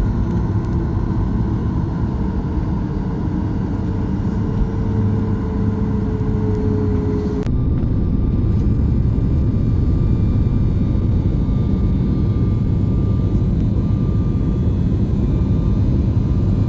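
Loud, steady low mechanical rumble, like a large engine running, with a sudden change in its sound about seven seconds in.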